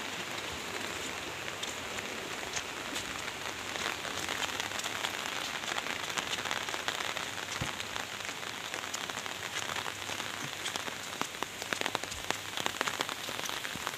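Steady rain falling, with many sharp drop hits close by.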